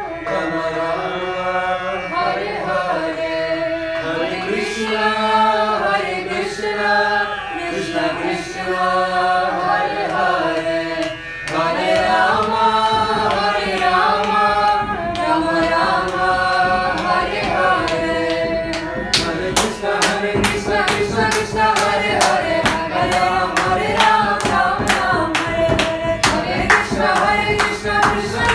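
Voices singing a devotional kirtan melody with drum accompaniment. About two-thirds of the way in, steady rhythmic hand clapping joins in, roughly three claps a second.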